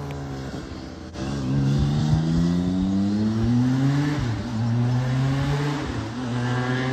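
BMW K1600GT's 1,649 cc transverse inline-six engine accelerating, its note rising in pitch after about a second. The pitch drops briefly about four seconds in, climbs again, then holds steady near the end.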